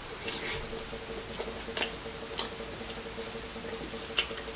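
Mouth-and-hands eating sounds of a seafood-boil mukbang: scattered wet clicks and smacks of chewing and handling sauced seafood. A steady faint hum runs underneath.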